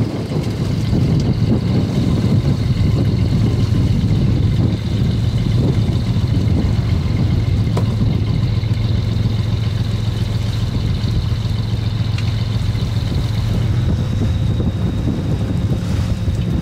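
Small fishing dragger's diesel engine running with a steady low drone, with a faint steady high whine above it and wind on the microphone.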